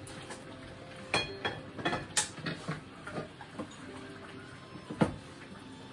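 Kitchen handling sounds at the counter: a string of light knocks and clinks, some briefly ringing, with the sharpest knock about five seconds in.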